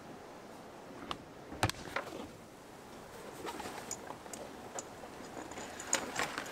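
Worn canvas drawstring bag handled and opened by hand: a few sharp clicks and knocks, then rustling and scraping of stiff canvas and rope.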